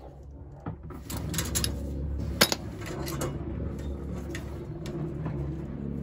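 Open flare wrenches clicking and clinking on a tube fitting at a gas boiler's gas valve, with one sharp metal click about two and a half seconds in, over a low steady hum.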